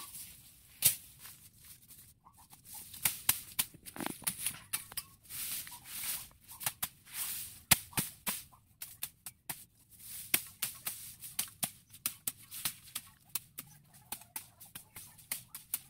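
Machete slashing through tall grass: a run of sharp, irregular cutting strokes and swishes.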